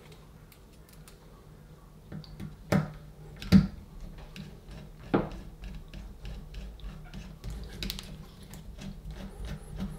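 Small clicks and ticks of a screwdriver working a tiny screw into the back of a chrome kitchen mixer tap, with a few sharper knocks about three, three and a half and five seconds in.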